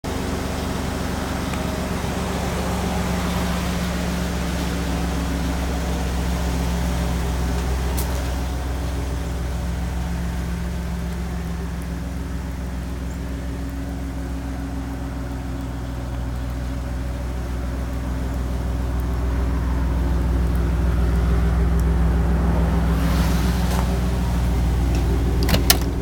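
Ford F-150 pickup's engine idling steadily, a little louder about two-thirds of the way through. A few sharp clicks near the end.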